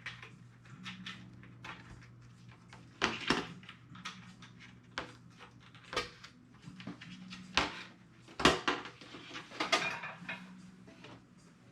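Irregular light clicks and knocks of hard composite glider parts being handled as the wing is fitted onto the fuselage and its flap linkage engaged, over a steady low hum.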